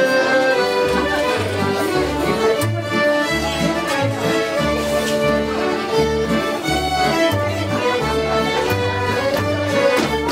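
Live folk band playing an engelsk, a Danish folk dance tune in march time: a fiddle carries the melody over a double bass plucking a steady bass line on the beat.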